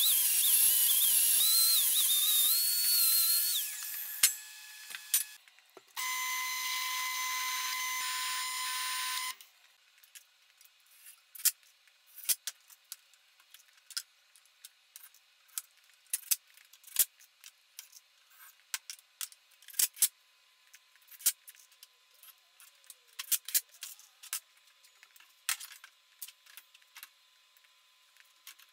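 Angle grinder grinding a steel weld, its whine wavering under load, stopping about three and a half seconds in. A few seconds later a cordless drill runs steadily for about three seconds, followed by scattered light clicks and knocks of parts being handled.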